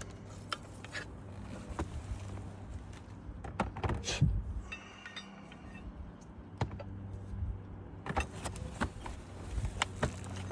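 Hand tools clinking and knocking against cedar shakes during roof repair: scattered sharp metallic clicks and taps, the loudest a little after four seconds, over a steady low hum.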